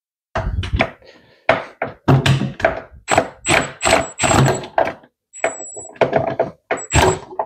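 Milwaukee M18 1/4-inch hex impact driver on a swivel and extension, triggered in a rapid series of short bursts, some with a high motor whine, while trying to start an air box bolt that does not line up with its hole.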